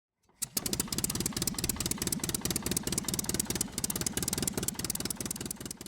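A motor running with a fast, even pulse, starting about half a second in and fading away near the end.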